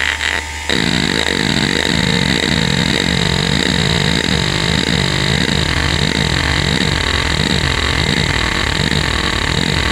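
Western Digital Caviar 31200 hard drive's head actuator seeking continuously under the hdmotion test pattern, a buzzing seek noise that sweeps down and up in pitch about twice a second over the drive's steady whine. A short pause about half a second in, then the sweeping seeks start.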